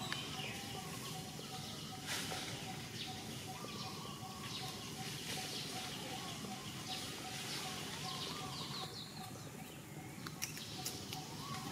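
Birds chirping in the background over a faint, steady, fast-pulsing note, with a few sharp clicks near the end.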